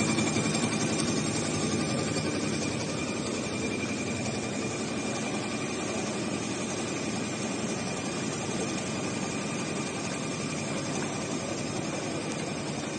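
Computerised heating-wire sewing machine running: a steady mechanical whirr from the sewing head and its drives, with a thin high whine over it. It is a little louder in the first couple of seconds, then stays even.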